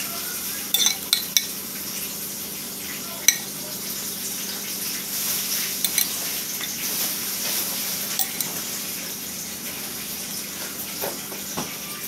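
Scattered clinks and taps of a hand and utensil against a glass bowl of potatoes and string beans, the sharpest about three seconds in, over a steady hiss.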